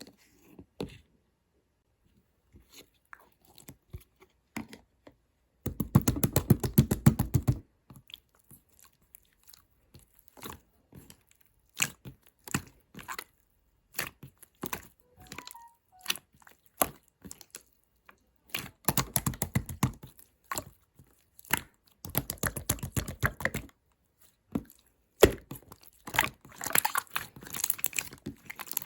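Chewing and crunching of food, with scattered single clicks and several runs of rapid, crackling clicks lasting a second or two each.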